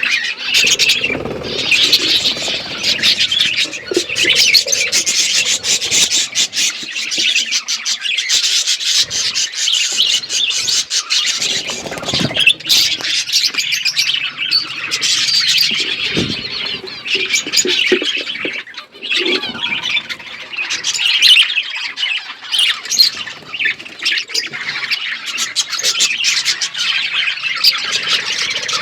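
Budgerigars chirping and chattering continuously, many short high calls overlapping without a break.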